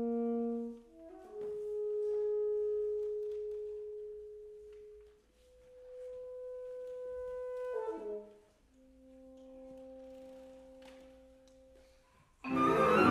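Contemporary chamber music: long held wind notes, one or two at a time, each swelling and fading in turn with short gaps between them. About twelve seconds in, the full ensemble and percussion come in suddenly and loudly.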